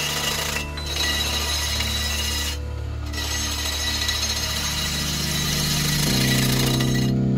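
Turning tool scraping a spinning wooden bowl on a wood lathe: a steady rough hiss that breaks off briefly three times. Background music with sustained low notes plays underneath.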